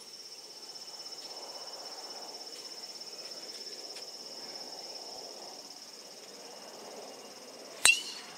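Insects give a steady high trill throughout. Near the end a golf driver strikes the teed ball once: a sharp, loud metallic crack that rings briefly.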